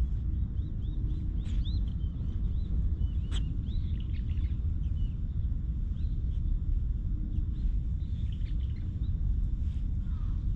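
Steady wind rumble on the microphone, with small birds chirping repeatedly in short, high calls throughout.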